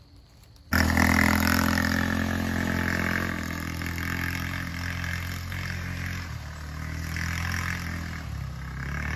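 Small off-road buggy's engine cutting in abruptly about a second in and running steadily, easing off a little as the buggy drives away, with a drop in pitch near six seconds.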